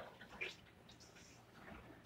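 Faint, soft scrapes of a plastic spoon stirring crushed pineapple in a pan, a few short strokes, the clearest about half a second in.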